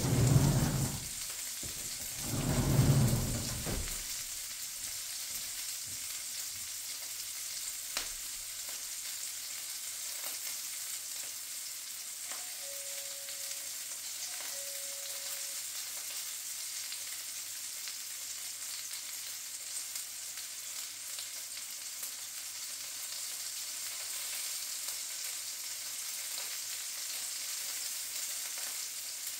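Sausage links sizzling in a frying pan on a gas stove: a steady frying hiss. Two louder muffled bumps come in the first few seconds.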